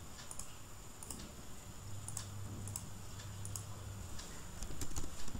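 Computer mouse clicks and keyboard key presses, sharp and irregular, with a closer run of presses near the end as a dimension value is typed in, over a steady low electrical hum.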